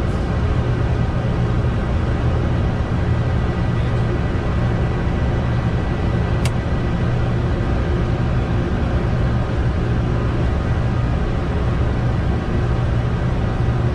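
Steady flight-deck noise of a Boeing 747-200 in its climb: a constant rumble of engines and airflow, with one sharp click about six and a half seconds in.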